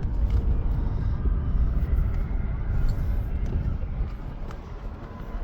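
Toyota Land Cruiser Prado rolling slowly over a rough dirt track, heard from inside the cabin as a steady, uneven low rumble with a few faint knocks.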